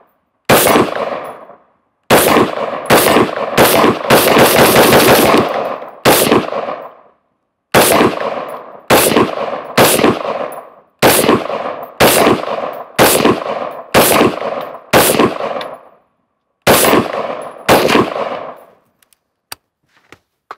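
Daniel Defense Mk18 5.56 short-barrelled AR pistol firing semi-automatic strings, each report sharp with a ringing tail. Between about 4 and 6 seconds in the shots come very fast, almost running together; after that they come steadily about twice a second. A few faint clicks follow near the end.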